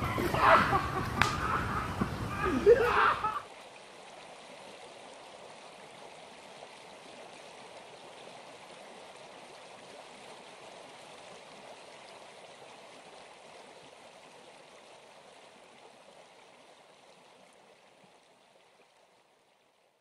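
For about three seconds, loud voices of the people filming come over low rumble on the microphone, then cut off abruptly. What follows is faint, steady lakeside ambience, an even hiss of water and air, which slowly fades out.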